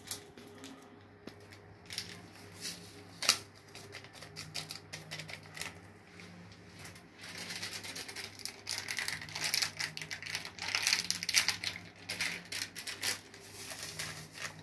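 Small plastic packets of vanilla being handled: crinkling and rustling, with a few sharp clicks in the first few seconds and denser, louder crackling in the second half.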